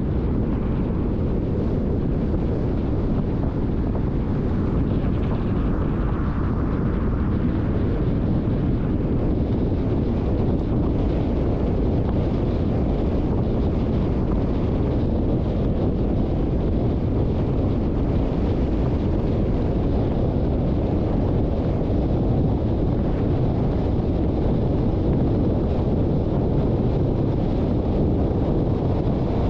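Steady low rumble of a car driving: road and wind noise, unbroken throughout.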